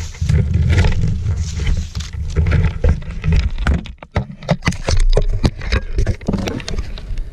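Heavy rumble of rubbing and wind buffeting on a body-worn camera's microphone during a skiing fall. From about halfway in it gives way to a quick run of sharp knocks and scrapes as skis, poles and camera bang about in the snow while the skier gets going again.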